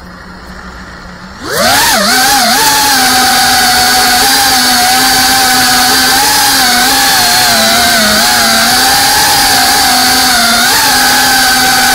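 FPV quadcopter's motors and propellers spooling up sharply about one and a half seconds in, then running as a loud, steady buzzing whine that wavers slightly in pitch as the throttle changes.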